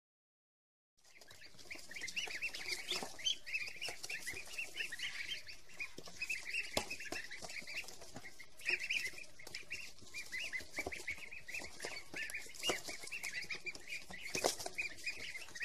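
A boxful of ducklings peeping constantly in rapid, high, overlapping chirps, starting about a second in, with occasional light knocks against the box.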